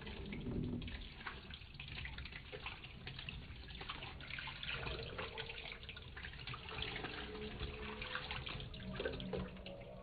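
Water pouring in a thin stream from a glass cup into a stainless steel sink, splashing and trickling, and tailing off near the end as the cup empties.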